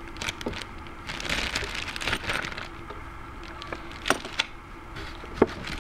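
Small metal mounting brackets and hardware being handled in their box, with handling rustle and a few sharp clinks and knocks. The loudest knock comes near the end.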